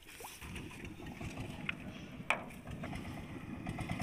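Low rumble of wind on the microphone, with a sharp click a little past halfway and a fainter one shortly before it.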